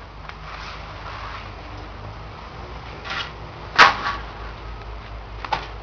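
Quiet background with a few short knocks or clatters as someone moves about: a soft one just after three seconds, a sharp, louder one just before four seconds, and a small one near the end.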